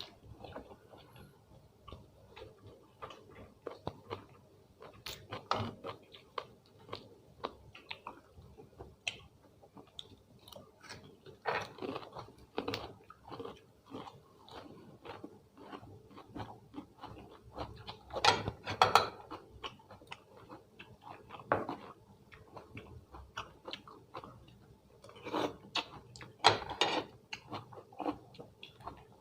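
A person chewing and biting food close to the microphone: irregular crunches and wet mouth sounds, with louder bursts of crunching a little past halfway and near the end.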